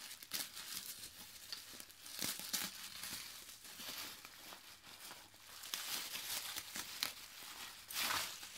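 Plastic wrapping crinkling and rustling as it is handled and cut with scissors, in irregular crackles, with a louder burst near the end.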